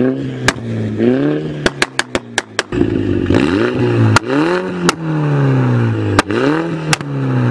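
MINI hatchback with an ARMYTRIX aftermarket exhaust being revved repeatedly, the engine pitch climbing and falling, with sharp exhaust pops and bangs between revs, including a rapid string of five or six about two seconds in.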